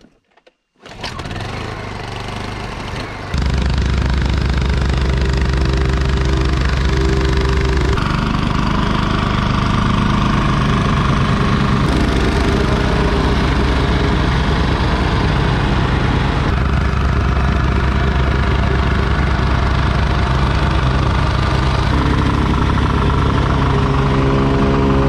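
Bomag BPR reversible vibratory plate compactor running steadily while being walked over gravel. A quieter engine runs for the first couple of seconds before the louder compactor takes over about three seconds in.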